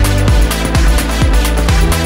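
Electronic dance music with a steady kick drum, about two beats a second, over a held bass line.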